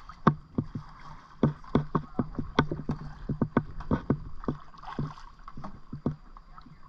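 Kayak paddle at work close by: strokes and drips on the water, with many irregular sharp clicks and knocks, several a second.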